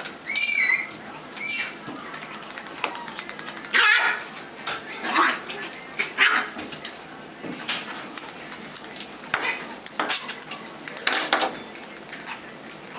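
Yorkshire terrier puppies playing: two short high yips in the first couple of seconds, then scuffling and many sharp clicks as they scramble about the hard floor and toys.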